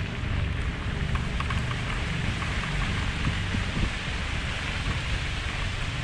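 Wind buffeting the microphone as a mountain bike rolls along a dirt-and-gravel trail, giving a continuous low rumble with the hiss and light crunch of tyres on grit.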